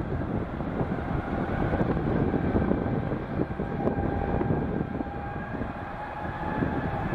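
Airbus A330-200 twin jet engines at takeoff thrust as the airliner rotates and lifts off: a steady low rumble with a faint steady whine over it.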